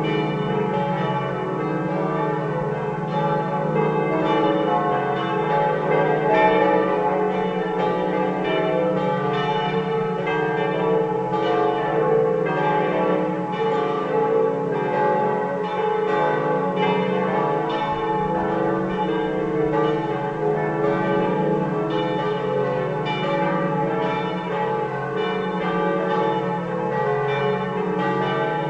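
Swinging church bells from a five-bell set tuned D, E, F-sharp, G and A, cast by the Pruneri foundry of Grosio, ringing together in a continuous peal of overlapping strikes and long-ringing tones.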